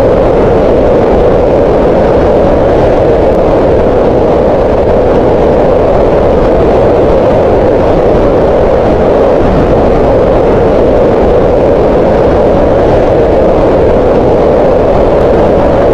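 Green noise: steady, loud, unchanging synthetic noise with its energy concentrated in a band around 500 Hz.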